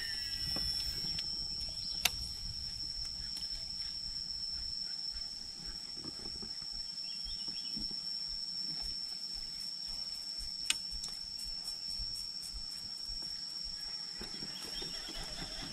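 Steady high-pitched drone of insects, with two sharp clicks, one about two seconds in and one near eleven seconds, over a low rumble of wind.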